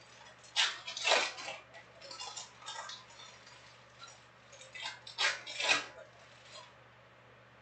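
Foil trading-card pack wrappers crinkling as packs are handled and opened, in several short bursts, the loudest about a second in and again around five and a half seconds in.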